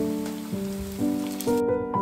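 Background piano music, a slow melody with a new note struck about every half second, over a steady hiss that cuts off suddenly about one and a half seconds in.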